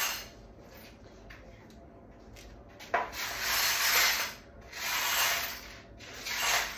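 A few rough brushing or rubbing strokes, each about a second long, with quieter gaps between them.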